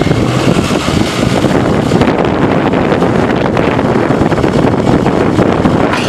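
A John Deere 310SK backhoe loader's 4.5 L four-cylinder diesel running steadily while the loader arms raise the front bucket, with wind buffeting the microphone.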